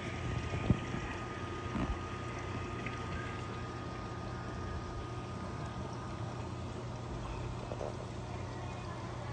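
Steady hum and rush of a reef aquarium's pumps and circulating water, a low hum with a faint steady tone above it. A sharp knock comes just under a second in, and a softer one near two seconds.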